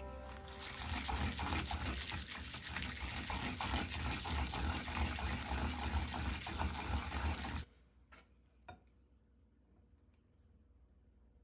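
Wooden pestle (surikogi) grinding minced sardine in a ridged Japanese suribachi mortar: a dense, uneven scraping and mashing that stops abruptly about seven and a half seconds in, followed by a couple of light clicks.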